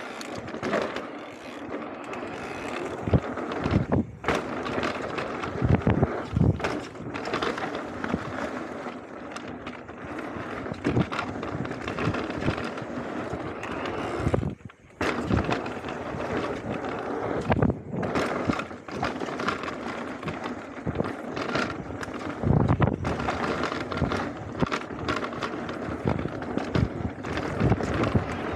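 Mountain bike descending a dirt trail at speed: tyres rolling over dirt and stones, with frequent knocks and rattles from the bike over bumps and a brief lull about halfway through.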